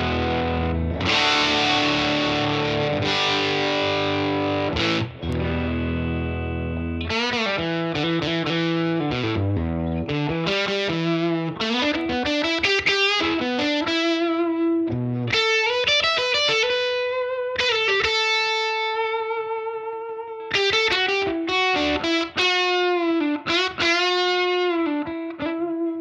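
Electric guitar played through a Satellite Amplifiers White JFET overdrive pedal into a Fender Princeton amp. Ringing overdriven chords for the first several seconds give way to a single-note lead line with string bends.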